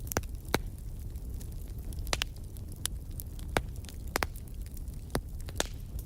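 Wood fire burning in a fireplace, crackling with sharp irregular pops a few times a second over a low steady rumble of the flames.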